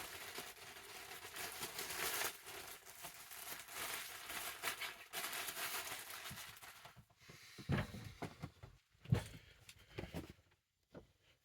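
Mail packaging being torn open and crinkled by hand, with a continuous rustle for about seven seconds, then a few soft knocks as the contents are handled.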